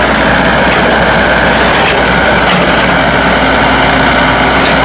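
Kobelco SK045 mini excavator's diesel engine running steadily and loudly, with a faint even whine over it.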